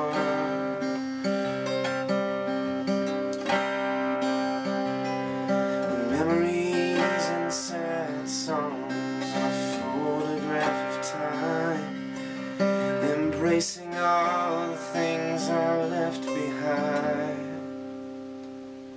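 Acoustic guitar playing an instrumental outro of strummed and picked chords, fading out near the end.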